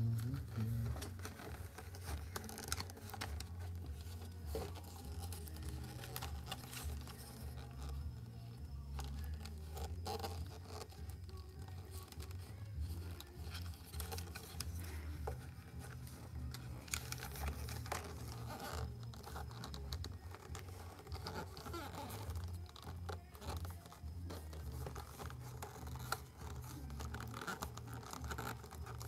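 Foam model-glider parts being handled and pushed together by hand: light rustling, scraping and small clicks, over a steady low hum.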